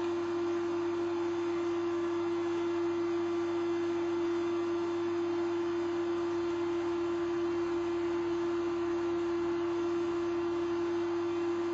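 Steady hum of laboratory equipment: one strong unchanging tone over an even hiss.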